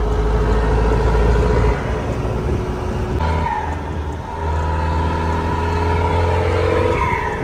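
Turbocharged engine of a doorless modified Mahindra Thar heard from inside the open cabin, pulling under load. It eases off about two seconds in, shifts again around three seconds, and pulls steadily once more from about four and a half seconds, its pitch slowly rising.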